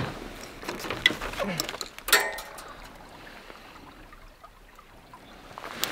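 Light clicks and knocks of fishing rod and line being handled while a small fish is unhooked over the side of a boat, with a brief voice sound about two seconds in and a faint water hiss behind.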